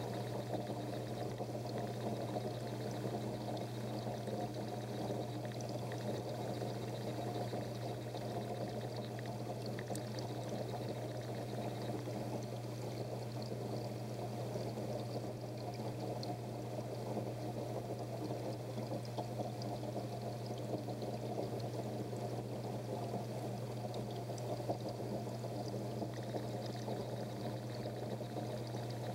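Water from an aquarium filter splashing and pouring steadily into the tank, with a constant low hum from the pump.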